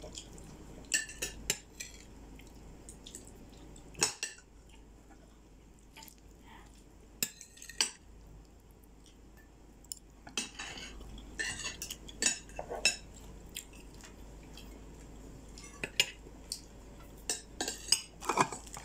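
Metal spoons, forks and a serving ladle clinking and scraping against ceramic plates and a cooking pot, in scattered clinks that come in loose clusters.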